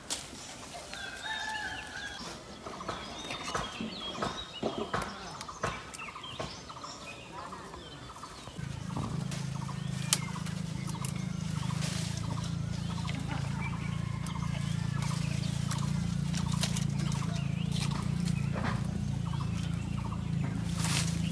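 Chickens clucking, with twigs and leaves crackling and snapping as fruit is picked from the branches. About eight and a half seconds in, a steady low drone starts and continues to the end, becoming the loudest sound.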